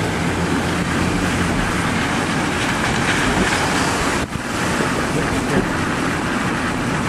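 Steady rushing wind noise buffeting the microphone under the storm, with a brief drop about four seconds in.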